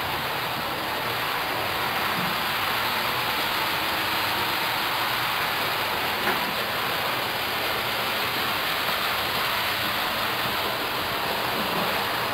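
Bachmann BR Standard Class 4MT tank model locomotive running on the layout: a steady hiss of its wheels rolling on the track, with no motor whine, cutting off suddenly near the end.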